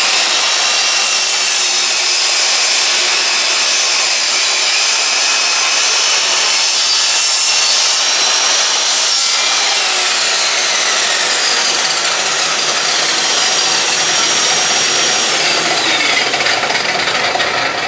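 Power saw running and cutting wood: a high motor whine over a steady sawing rasp, the whine dropping in pitch about ten seconds in and again near the end as the blade takes load.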